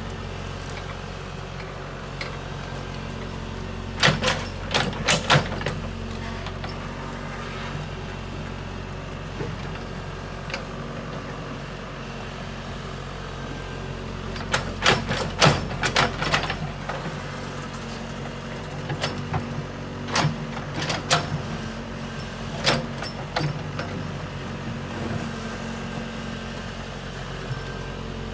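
Kobelco excavator's diesel engine running steadily under work, with four bursts of sharp knocks and clanks from the machine.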